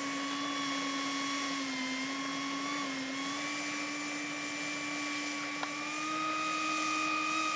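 Electric ducted fans of a large RC Boeing 747 model, a steady whine whose pitch dips slightly about two to three seconds in and rises a little about six seconds in.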